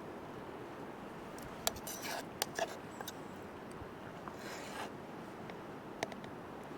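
Scattered short clicks, scrapes and a brief rustle of handled material, over a steady background hiss.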